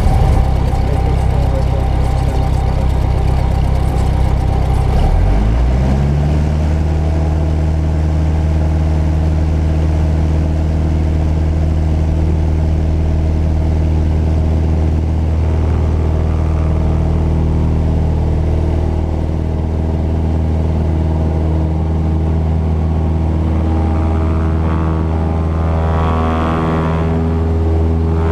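Cessna 172's piston engine and propeller heard from inside the cockpit, running at low power, then rising quickly in pitch about five seconds in as the throttle opens. After that it holds a steady, higher drone.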